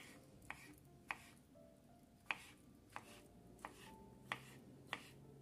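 Kitchen knife chopping boiled carrot strips into cubes on a wooden cutting board: about eight separate, faint knock-like strikes of the blade on the board, roughly one every half second or so.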